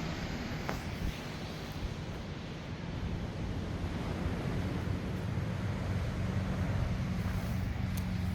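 East Sea waves washing against the shore, with wind buffeting the microphone, and a steady low engine hum joining underneath about three seconds in.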